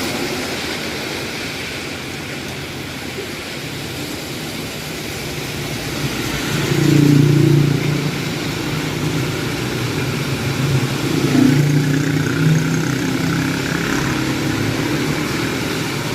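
Road traffic passing in the rain: motor vehicle engines go by over a steady hiss, loudest about seven seconds in and again around eleven to twelve seconds.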